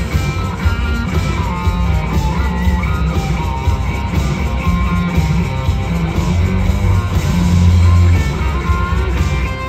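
Live rock band playing an instrumental stretch with no singing: electric guitar lead lines over heavy bass guitar and drums, amplified through a concert PA and heard from the crowd. A loud low bass note swells near the end.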